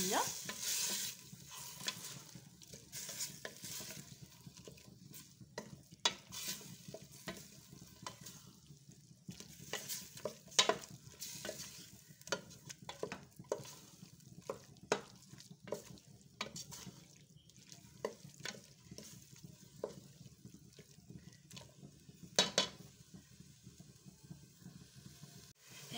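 Wooden spoon stirring and scraping chopped onion, tomato and garlic frying in oil in a stainless steel pot, over a faint sizzle; the spoon clicks and scrapes against the pot at irregular moments, loudest about ten seconds in and again about twenty-two seconds in.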